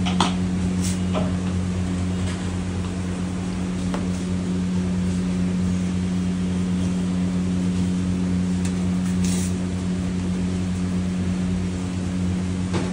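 Steady low electric machine hum at a constant pitch, with a few faint clicks near the start and a short hiss about nine seconds in.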